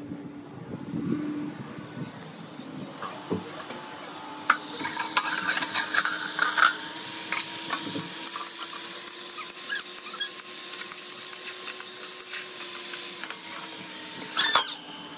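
Sliced potatoes frying in a metal wok, sizzling, with a steel spatula scraping and clinking against the pan as they are stirred. The sizzle and scraping pick up about four seconds in, with a sharp loud scrape just before the end.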